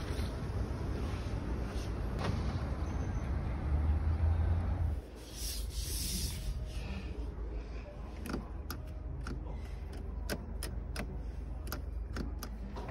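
Steady background noise with a low rumble that drops away suddenly about five seconds in, followed by a quieter car cabin with a string of light, sharp clicks and taps from hands working the controls.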